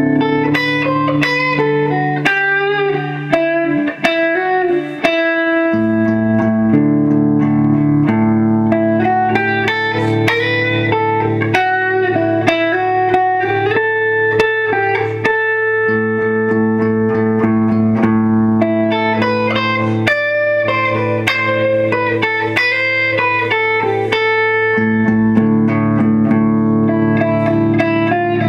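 Les Paul Standard electric guitar played clean through a Heraton Strato 345h all-valve amp with four EL84s and two 12-inch speakers: a slow, sentimental passage of ringing chords and melody notes in a clean, warm tone.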